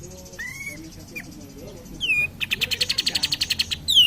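Kapas tembak, a bulbul, singing: a fast high buzzy trill, a short falling note, then a longer rapid rattling trill about two and a half seconds in, closing with a clear down-slurred whistle.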